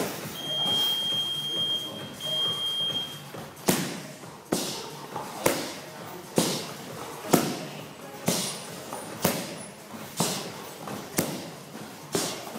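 Kicks landing on Thai pads, a sharp smack about once a second, starting a few seconds in and running at a steady pace.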